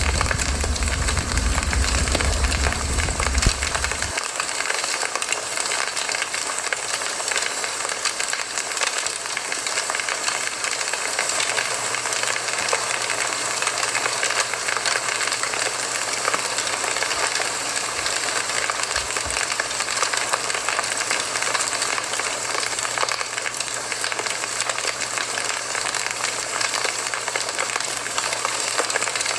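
Campfire burning with a steady hiss and dense, fine crackling. A deep low rumble under it in the first four seconds stops suddenly.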